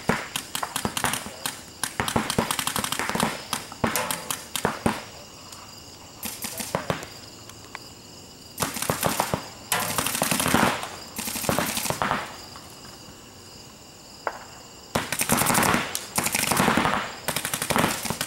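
Paintball markers firing rapid strings of shots in several bursts of a few seconds each, with short pauses between them.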